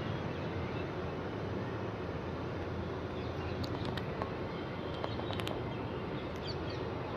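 Steady, even rumble of an airplane's engines, holding a constant level. A few faint short chirps and clicks sound between about three and a half and six and a half seconds in.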